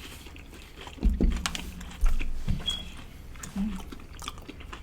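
Close-up biting and chewing of crunchy batter-fried seafood: crisp crunches, with two heavier bites about one and two seconds in.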